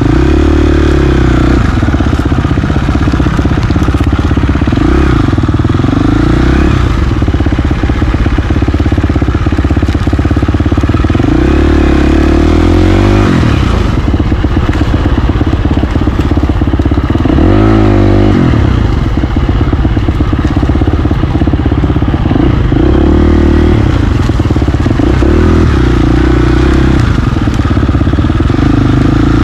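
KTM XCF350 four-stroke single-cylinder dirt bike engine, heard close up from the bike itself while trail riding, its revs rising and falling over and over as the throttle opens and closes.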